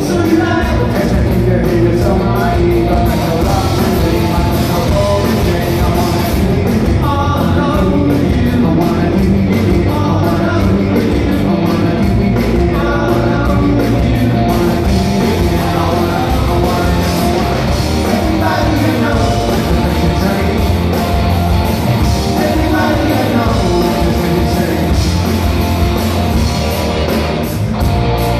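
Live rock band playing loud and steady, with electric guitars, bass and drums and a man singing, heard from the audience through the hall's PA.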